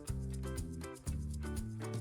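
Background music: a light, bouncy tune with a bass line and notes changing about twice a second, with a steady beat.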